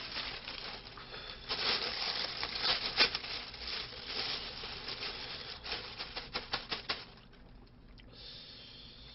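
Thin plastic bag crinkling and rustling as it is handled, with a sharp crackle about three seconds in and a quick run of crackles near the end; it stops about seven seconds in.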